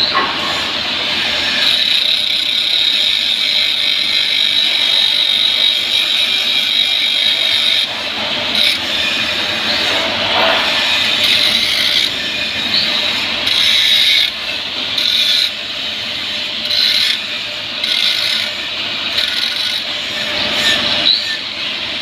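Electric arc welding: the arc gives a steady hiss, broken by several brief drops in the second half.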